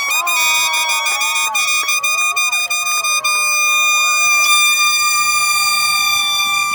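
Air horns blown in one long steady blast over a cheering, screaming crowd.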